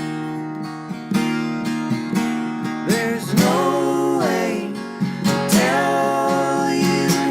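Acoustic guitar strummed in a steady rhythm, playing the instrumental close of a folk song.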